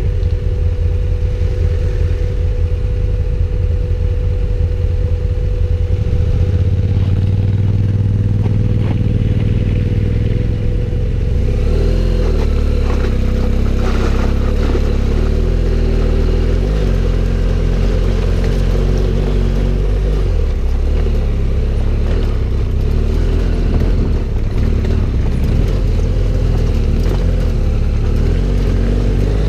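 Adventure motorcycle's engine running steadily while riding, with a heavy low rumble. About eleven seconds in, the engine note shifts and stays rougher.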